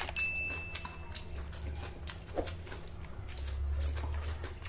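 A person chewing and biting food close to the microphone: many small wet mouth clicks, with a steady low hum underneath.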